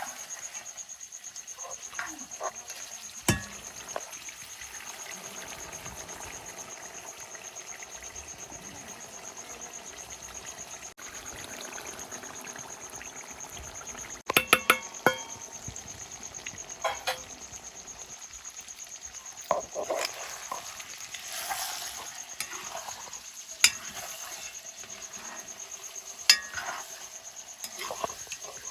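Pork frying in a pan and being stirred with a metal utensil, which clinks sharply against the pan now and then, a cluster of clinks about halfway through. A steady high-pitched trill runs underneath.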